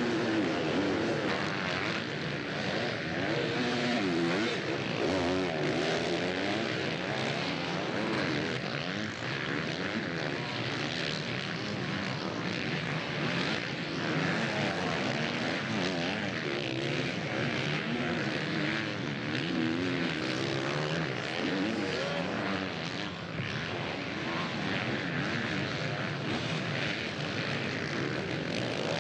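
Motocross bikes racing on a sand track, several engines revving up and down together.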